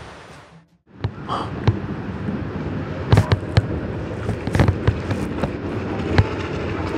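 Steady outdoor rumble with scattered sharp pops and cracks, several of them bunched about three and four and a half seconds in, starting after a brief silence about a second in.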